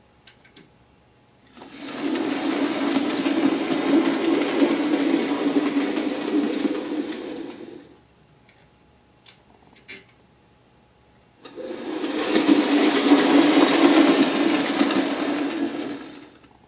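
Bachmann OO gauge LNER Class V2 model locomotive running on track, its small electric motor and wheels whirring as it passes close by twice, each pass lasting about five seconds. Between the passes there are faint clicks.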